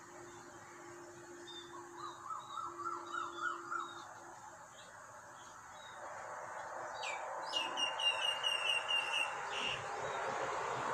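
Birds calling: a run of short rising notes, then about seven seconds in a quick series of higher chirps, over a steady background noise that grows louder.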